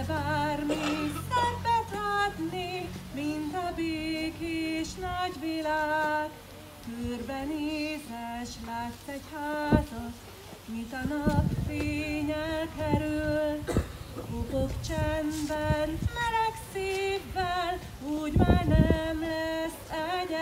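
A woman singing a slow song solo into a microphone, with vibrato on the held notes. A few sharp knocks and short low rumbles break in around the middle and near the end.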